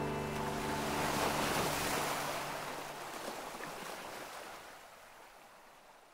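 Ocean waves washing, swelling about a second in and then fading steadily away; the last held notes of music die out in the first second.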